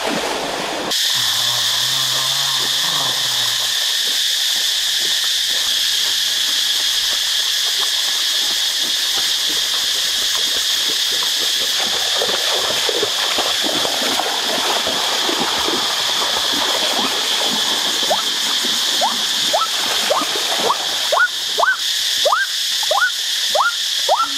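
Water splashing and gurgling in a shallow stream, with quick rising plinks about twice a second near the end, over a steady high-pitched drone that starts about a second in.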